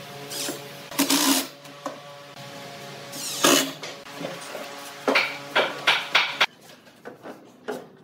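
Short bursts of a Makita 18V cordless impact driver driving screws into wood, then several knocks and clunks of wooden pieces being handled on a table.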